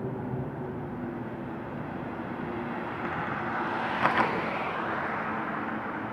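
Street traffic: car engines running with a steady low hum while a car passes close, its tyre noise swelling about three to five seconds in. Two sharp clacks just after four seconds are the loudest sounds.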